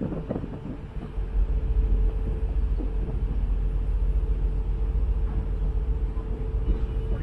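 A ferry's engines running with a low, steady rumble and a constant hum, which cuts off near the end.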